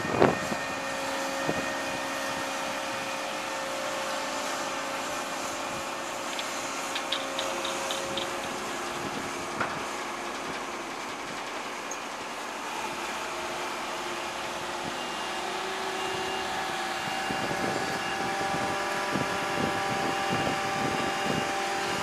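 Construction-site machinery running: a steady hum of engines with a few scattered clanks, and a quick run of about six sharp ticks about seven seconds in.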